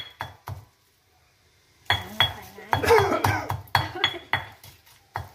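Metal utensils clinking and knocking against a bowl as a dipping sauce is mixed. There are a few sharp clinks, a second-long pause about a second in, then a busy run of clinks.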